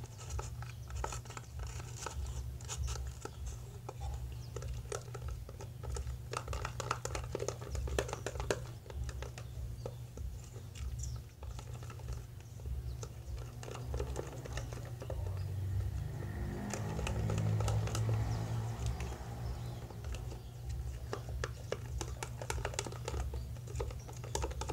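A metal spoon clicking and scraping against a small plastic tub as white glue and food colouring are stirred for slime, with plastic crinkling at times, over a steady low hum.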